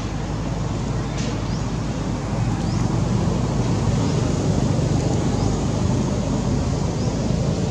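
Steady outdoor rumble, heaviest in the low end, with short, high, rising chirps repeating every second or two over it.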